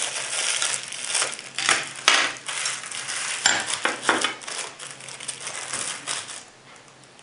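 Clear plastic sleeves crinkling and rustling as they are handled and opened, with light clinks of the metal knife, fork and spoon inside. The handling stops about six seconds in.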